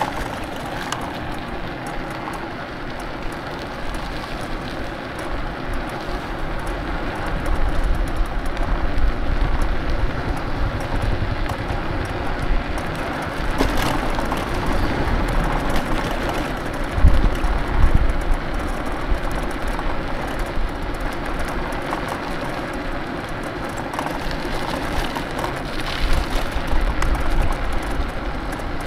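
Wind rushing over the microphone and tyre hiss on a wet road while riding an electric scooter, with heavier low wind buffets swelling several times.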